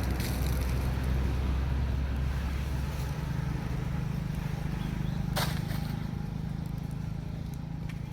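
Steady low hum like an idling engine, with a single sharp click about five seconds in.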